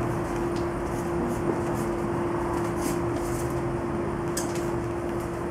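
A steady hum: one constant low tone over an even hiss, with a few faint ticks.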